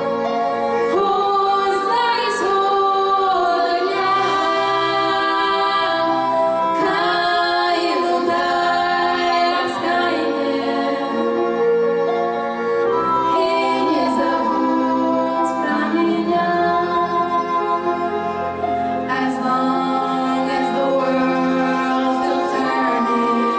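A girl singing solo into a microphone with musical accompaniment, holding many long notes without a break.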